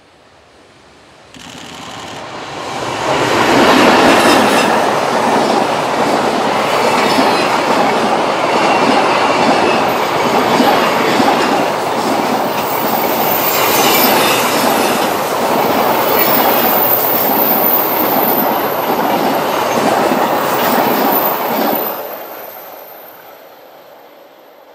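EH500 electric locomotive hauling a long container freight train past at close range. Its sound swells about a second in and the wagons' wheels rumble and clack over the rails for some twenty seconds, with a thin high-pitched wheel squeal in the second half. The sound dies away near the end as the last wagon passes.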